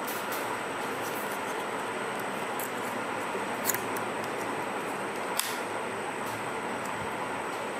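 Steady background hiss with two faint clicks, one a little under four seconds in and one about five and a half seconds in, from handling the Canon DSLR body as its rear cover is eased off.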